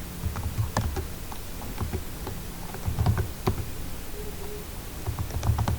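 Writing by hand: irregular light taps and clicks of a pen on a writing surface, with soft low knocks between them.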